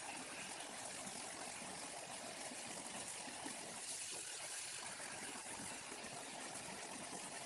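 Waterfall water falling and splashing in a steady, even hiss.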